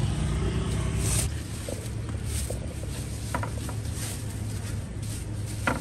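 Steady low rumble of street background with a few short, light knocks spread through it.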